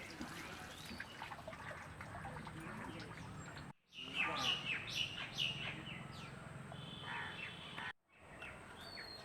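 Small birds chirping: many short, quick calls, busiest in the second half. The sound drops out briefly twice.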